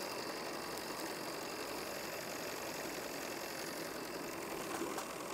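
Live steam model locomotive 'Russell' running free on the bench under its own steam on its first steaming: a steady hiss of steam with the fast, even patter of its cylinders and valve gear.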